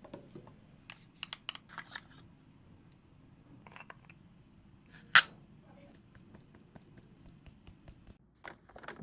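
Skincare packaging being handled: scattered small clicks and taps, with one much louder sharp click about five seconds in, like a cap or lid snapping.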